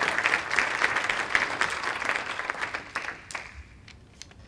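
Audience applauding, the clapping fading away about three seconds in.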